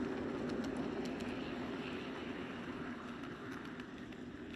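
G-scale model train cars rolling past on garden track: a steady rumble of wheels with scattered light clicks, fading as the last car, a caboose, goes by.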